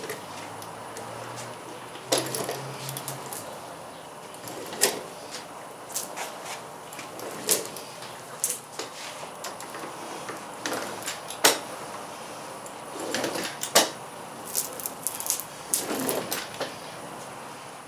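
Hand roller being worked back and forth over a Filon fiberglass sheet to press it onto contact cement, with irregular sharp clicks and knocks over a steady hiss.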